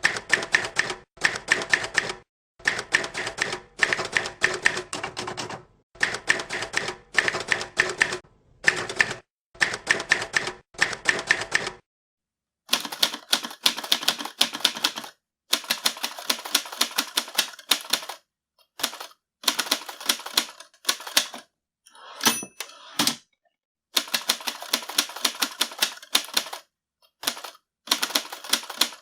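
Mechanical typewriter typing in quick runs of key strikes with short pauses between runs. About twelve seconds in the recording changes to a second machine with less low end. About two-thirds through there is one short bell-like ring, the typewriter's margin bell.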